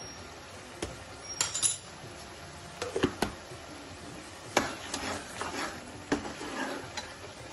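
Long metal ladle clinking and scraping against the sides and bottom of a metal kadai while stirring peas in a thin tomato gravy: a string of irregular clinks and short scrapes.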